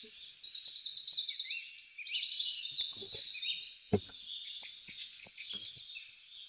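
Several small birds chirping and singing, with rapid trills of high repeated notes overlapping one another, loudest in the first couple of seconds and then fading. A single sharp knock about four seconds in, with a few faint light clicks.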